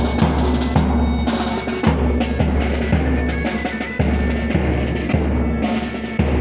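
Marching band's bass drum and snare drum beating a steady march time, the bass drum striking about once a second with snare strokes between.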